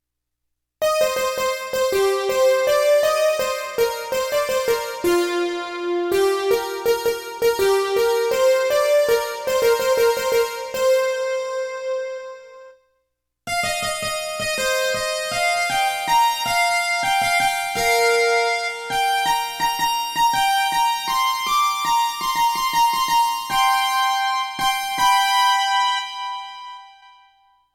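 Roland XP-30 synthesizer playing a melody on a keyboard patch in two phrases of quick, rapidly repeated notes, with a short break of about a second between them.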